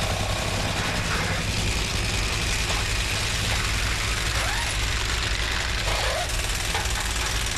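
Nitro Funny Car drag racing engines running at idle, a steady low drone with no breaks, over the noise of the strip.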